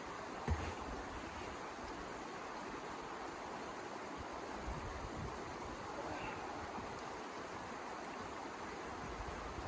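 Steady rushing noise of blizzard wind, with a short low thump about half a second in.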